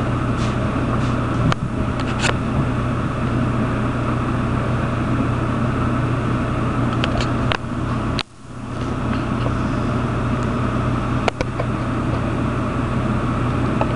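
Steady low hum of a running desktop computer, with a few sharp clicks.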